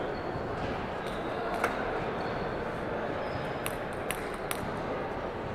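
Celluloid-type table tennis ball bouncing on the table: one sharp click about a second and a half in, then three light clicks in quick succession near the end as it is bounced before a serve.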